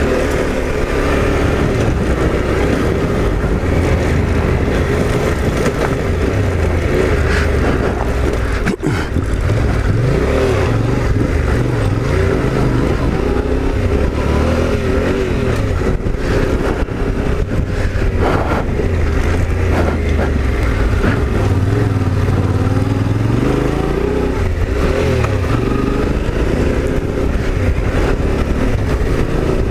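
Off-road motorcycle engine pulling uphill, its revs rising and falling again and again.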